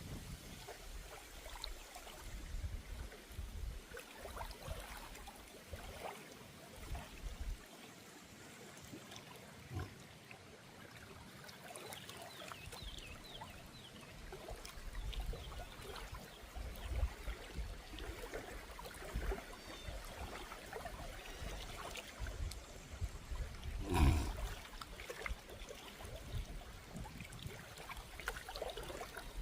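Water trickling and flowing in a small river, with wind rumbling on the microphone. There are scattered small clicks and one louder knock late on.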